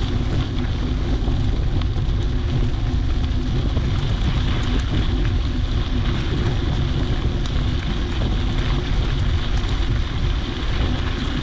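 Bike tyres rolling steadily over a wet, soft dirt trail, with a light crackle of mud and grit, and wind buffeting the microphone as a low rumble.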